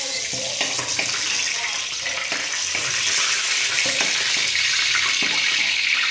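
Hot oil sizzling steadily in a steel kadai as pieces of sating fish fry, with a metal spatula scraping and tapping against the pan several times as the fried pieces are lifted out.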